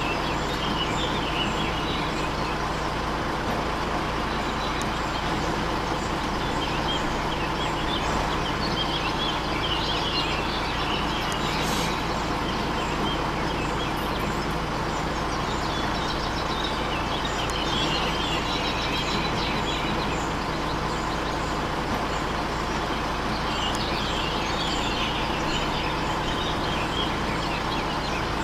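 A motor running steadily, with birds chirping in short bursts every several seconds.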